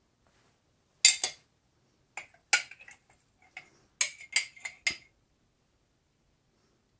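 Metal spoon clinking against a small glass jar and tapping on a ceramic plate while sauce is scooped and spread: about ten short, sharp clinks, a pair about a second in and a run of them from two to five seconds in.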